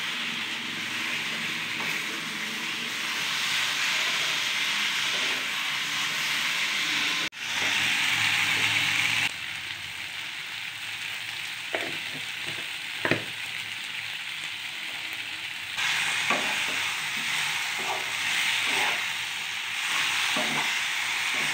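Cauliflower and potato pieces sizzling in oil in a frying pan while being stirred with a spatula, with a few short knocks and scrapes of the spatula against the pan.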